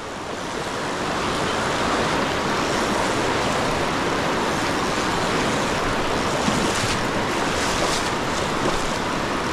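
Steady noise of fast river water rushing past, rising over the first second or two and then holding level.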